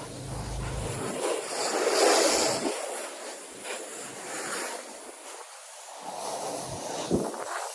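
Pressure washer wand spraying water onto a house wall, a rushing hiss that swells and fades as the spray moves.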